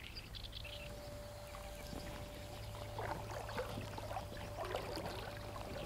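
Faint sloshing and trickling of shallow river water, with a thin steady hum running through most of it.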